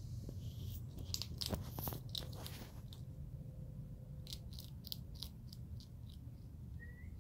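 Striped skunk crunching and chewing small pieces of dry food: a run of crisp crunches over the first few seconds and a few more about four to five seconds in, over a steady low background hum.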